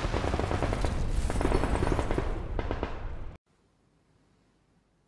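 Rapid machine-gun fire, a dense battle sound effect of many quick shots, cutting off suddenly about three and a half seconds in; then near silence.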